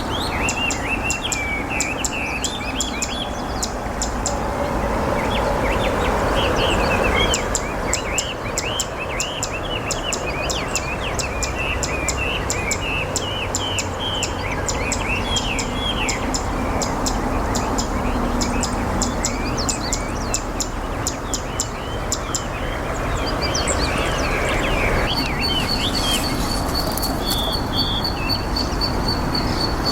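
Zitting cisticola singing its sharp, evenly repeated 'zit' notes in runs lasting several seconds, over steady outdoor background noise. Other small birds chirp alongside, and a thin, steady high whistle comes in near the end.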